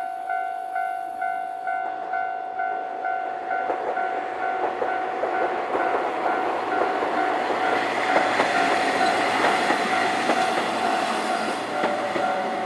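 Japanese level-crossing warning bell ringing in a steady electronic rhythm, a little over two strokes a second, while a train passes over the crossing. The train's running noise and wheel clatter on the rails build up from a few seconds in and are loudest past the middle, with a falling tone near the end.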